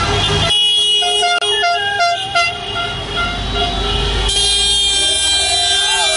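Many car horns honking at once, held on and overlapping, their pitches changing now and then. The mix of horns changes abruptly about half a second in and again just after four seconds.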